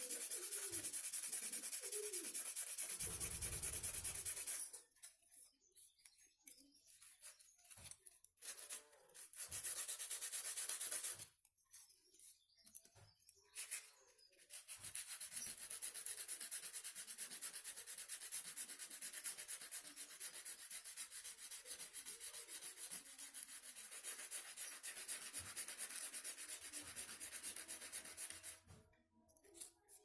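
Sandpaper rubbed by hand over a rusty steel horn plate, scrubbing the rust off down to bare steel. It runs steadily for the first few seconds, breaks into short strokes with pauses, then runs steadily again from about halfway until it stops near the end.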